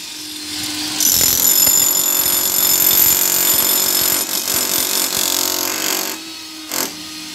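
Electric demolition hammer chipping a concrete wall with a chisel bit: a loud, continuous rattling hammering with a high whine. It starts about a second in and stops about six seconds in, then gives one short burst near the end.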